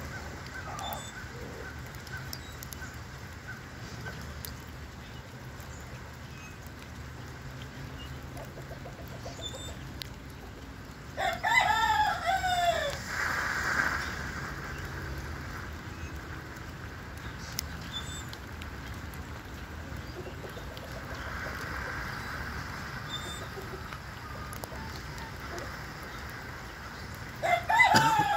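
A rooster crowing twice, about eleven seconds in and again near the end. Each crow is a loud call of about two seconds that drops in pitch at its close.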